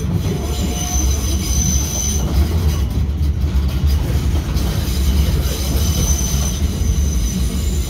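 Electric commuter train running, heard from inside the carriage: a steady low rumble of wheels on rail, with a thin high wheel squeal about a second in and again around six seconds in.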